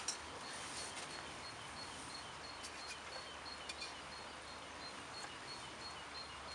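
A small bird repeating a high two-note call, about three times a second, over a steady outdoor hiss. A few light clicks of a fork against a metal camp pan.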